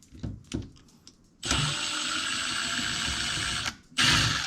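Cordless drill/driver running on a screw in two bursts: a steady run of about two seconds, then a brief stop and a second run near the end.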